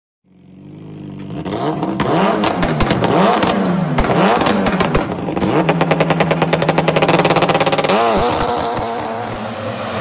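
Engine revving hard several times, pitch climbing and falling, with a rapid stuttering pulse near the middle and a last rev swoop; near the end it settles into a steadier engine drone.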